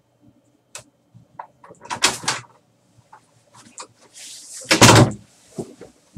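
A door opening or closing, with knocks and a clatter about two seconds in. Near five seconds comes the loudest sound, a thump with rustling, as a person sits down in an office chair.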